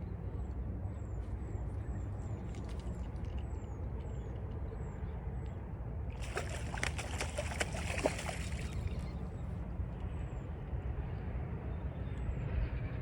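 Outdoor riverside sound: a steady low rumble with short, high, falling chirps repeating every half second or so. About six seconds in comes a burst of water splashing and sloshing that lasts a couple of seconds.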